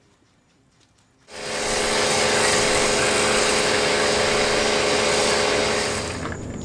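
Pressure washer starting about a second in and spraying through a foam cannon: a loud, steady hiss of spray over the pump motor's hum, dropping off near the end.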